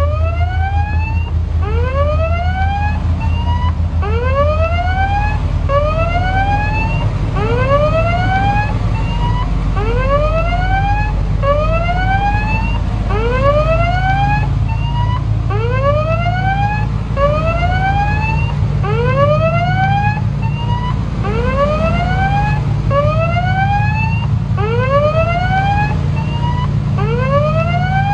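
Ship's electronic siren sounding a string of rising whoops, about one a second, over a low steady rumble from the ship.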